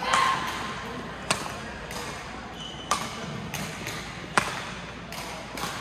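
Badminton rally: rackets striking the shuttlecock with sharp cracks about every one and a half seconds, three times, with short shoe squeaks on the court floor between the hits.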